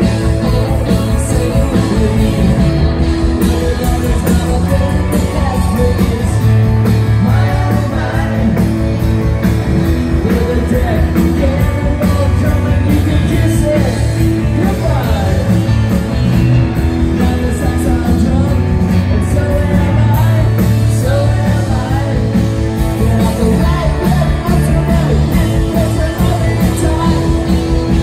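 Live rock band playing loud: electric guitars and drums driving a rock-and-roll song, with singing, as heard from the audience.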